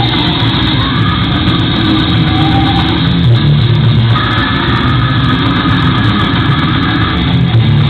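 Death metal band playing live: heavily distorted electric guitars, bass and drums in a dense, loud and overloaded wall of sound with a muffled top end.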